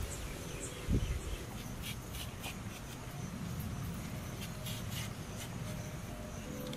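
Hand-held Y-peeler scraping the skin off a raw potato in a series of short, quick strokes, with a dull thump about a second in.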